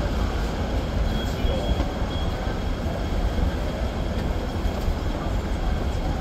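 Steady low rumble and city street noise aboard a Hong Kong double-decker tram standing still at a red signal, with a faint steady high tone above it.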